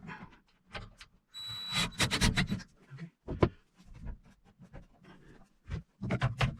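A cordless drill runs for about a second, starting about a second and a half in, with a steady high motor whine as it drives a screw. Short knocks and rubbing sounds come before and after it.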